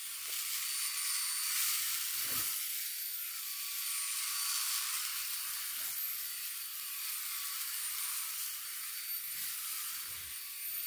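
Bosch Unlimited 7 cordless stick vacuum running in turbo mode over carpet, picking up red lentils: a steady airy suction hiss with a thin high motor whine.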